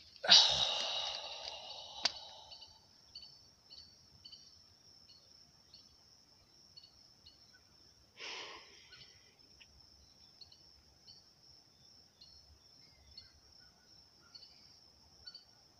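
A person's long sigh near the start, fading over about two seconds, and a shorter breath out about eight seconds in. Faint insect chirps repeat about twice a second throughout.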